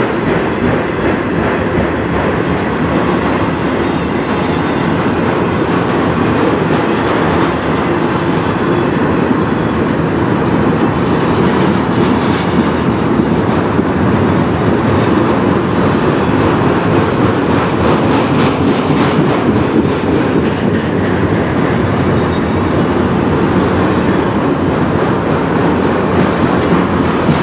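Freight train of autorack cars rolling past at close range: steady, loud rumble of steel wheels on rail, with frequent clicks throughout.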